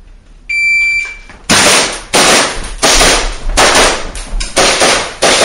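A shot timer's start beep, held for under a second, then about six rapid pistol shots fired in quick succession, each ringing on in a reverberant indoor range.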